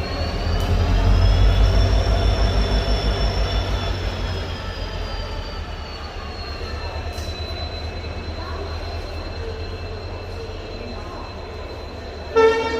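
WDG-4 diesel-electric locomotive under power, its EMD 16-cylinder two-stroke diesel giving a low throbbing rumble that swells over the first few seconds, with a high whine that rises in pitch, holds, and sinks back about halfway through. The locomotive's horn starts to sound right at the end.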